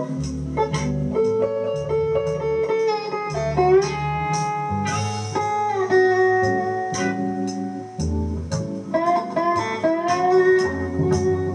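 Blues slide guitar playing: picked notes that glide up and down in pitch under a bottleneck, over a low repeating bass line.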